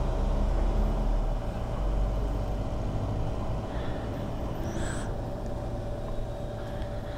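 Petrol dispenser running with a steady hum as fuel is pumped into a motorcycle's tank, under a low vehicle rumble that eases about two seconds in.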